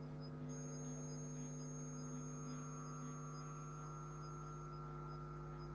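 Steady electrical mains hum with several overtones, with a faint high-pitched whine from about half a second in until near the end.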